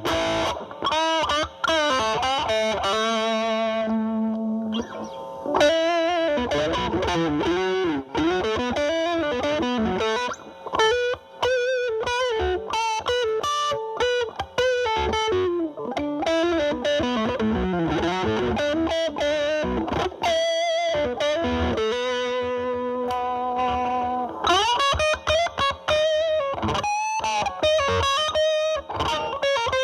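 Electric guitar, a Fender Stratocaster through a Boss DS-2 Turbo Distortion pedal in turbo mode into a Marshall Valvestate amp's drive channel, playing distorted lead lines. It mixes held, wavering notes and string bends with quicker runs of notes.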